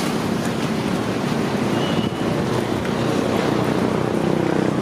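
Steady road traffic noise, with a short high beep about two seconds in and a vehicle engine growing louder near the end.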